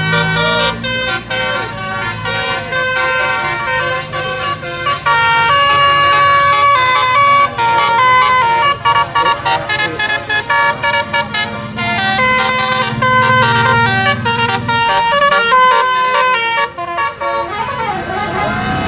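Indonesian bus telolet horns, multi-tone musical air horns, playing fast stepped melodies with several horn notes sounding at once, as two buses answer each other in a horn battle. A low drone sits under the horns at times.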